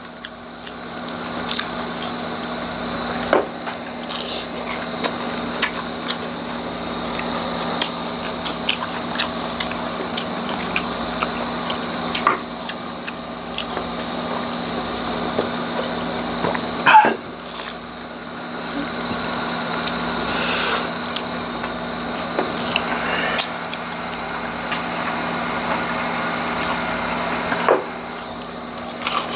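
Crunchy bites and chewing of deep-fried pork intestine (chicharong bulaklak), with many sharp crunches scattered throughout, over a steady background hum.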